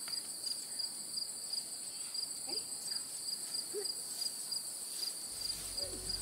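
Steady high chorus of field insects such as crickets or katydids, with a regular pulse about three times a second.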